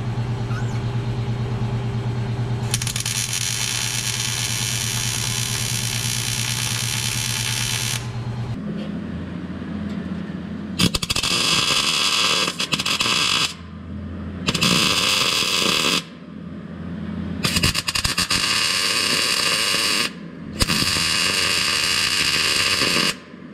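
MIG welder crackling as it welds a sheet-steel trunk floor pan to the frame rails, in four runs of about two to three seconds each through the second half. Before that there is a steady hum with a hiss over it.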